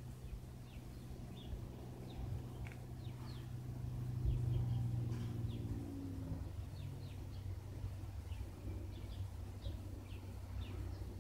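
A low-flying Cessna light aircraft drones overhead with a steady engine-and-propeller hum. It grows loudest about four to five seconds in, and its pitch drops at about six seconds as it passes. Small birds chirp throughout.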